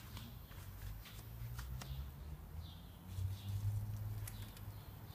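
Spin-on oil filter being unscrewed by hand from under the car: low rubbing and handling noise, louder a little past the middle, with a few light clicks.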